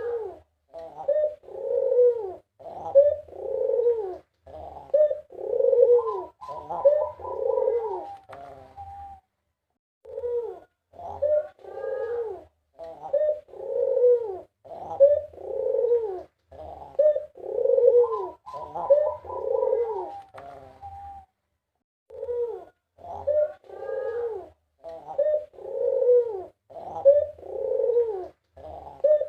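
White Barbary dove (puter) cooing in full voice: long bouts of repeated coos, each ending in a quicker run of higher notes, with short pauses after about nine and twenty-one seconds.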